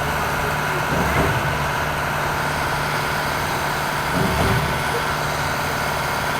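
Engine running steadily at a constant speed, a continuous drone.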